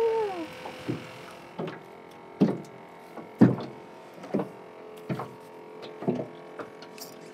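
Small waves slapping against the hull of a small fishing boat: irregular hollow knocks about once a second, the loudest two a little before the midpoint, over a faint steady hum.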